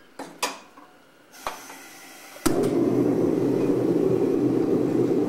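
A few light metal clinks, then about two and a half seconds in the steady roar of a propane gas forge's burner starts suddenly and keeps going.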